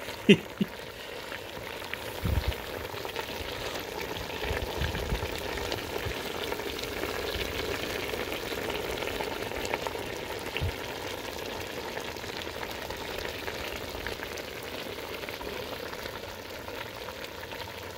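Pot of chicken stew bubbling and sizzling on the burner, a steady hiss with a few low bumps in the first few seconds.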